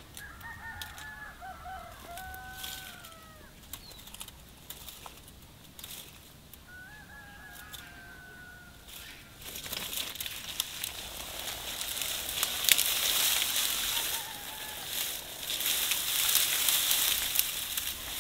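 A rooster crows twice, in the first half. From about halfway, dry branches crackle and rustle loudly as brushwood is gathered and pulled, with many sharp snaps.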